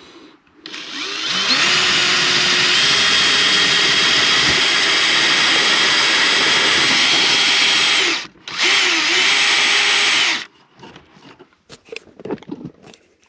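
Power drill boring a hole through a wooden wall with a long auger bit. It spins up about a second in, runs steadily, stops for a moment near eight seconds, runs again until about ten seconds in, then a few light knocks and clatter follow.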